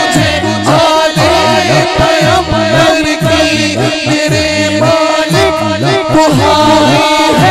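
A man singing a devotional Urdu song into a microphone, his voice amplified through a PA. He holds long, wavering notes over a rhythmic low backing.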